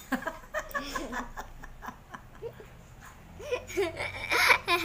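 A young girl giggling and laughing, loudest near the end, with a few short clicks of plastic spoons against the ice-cream tub early on.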